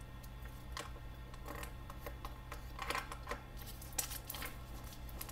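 Scattered light clicks and rustles of a paper sticker-label strip and small clear plastic storage containers being handled, over a low steady hum.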